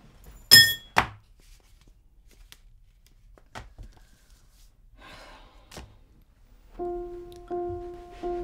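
A sharp, briefly ringing clink and then a thunk half a second later, both loud, followed by a few faint knocks. Near the end, music begins: one low plucked note repeated about every 0.6 s.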